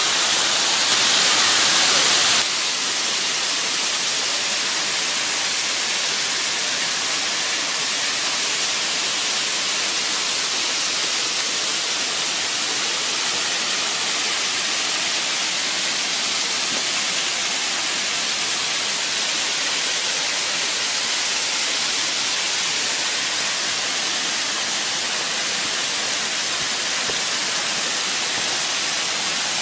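Waterfall: a steady rushing of water falling over rock, a little louder for the first two seconds or so, then even.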